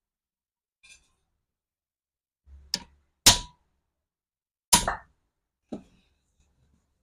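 Handling of an angle grinder and its metal parts: about five separate sharp clacks and knocks, the two loudest around the middle, one with a short metallic ring.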